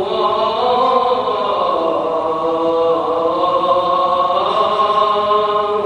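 A male muezzin singing the Friday call to prayer (adhan) before the sermon: one voice in long, ornamented held notes that glide slowly in pitch.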